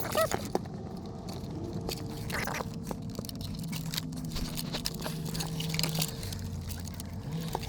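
Handling noise of cables and plastic connectors: irregular light clicks and scraping as antenna leads are fitted to the back of an aftermarket head unit, over a faint steady hum.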